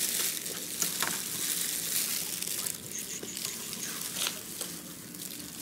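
Hands in disposable plastic gloves peeling cooked crayfish: irregular crinkling of the plastic and small cracks of the shells.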